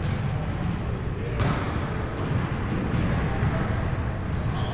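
Indoor basketball game ambience on a hardwood gym court: a basketball bouncing, short high sneaker squeaks, and a steady low room hum, with a sharp knock about a second and a half in.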